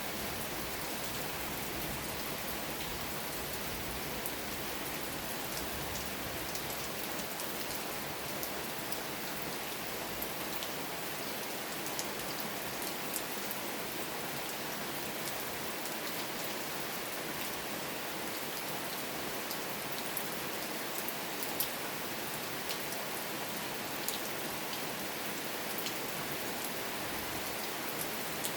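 Steady rain falling, a constant hiss with scattered sharper drips and taps of drops hitting a surface.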